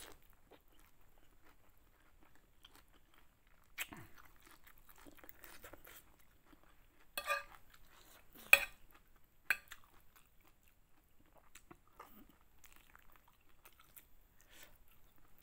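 Close-up eating sounds of chicken noodles (mie ayam): quiet chewing and biting into chicken. Around the middle come a few sharp clicks of a metal fork against the plate, one of them much louder than the rest.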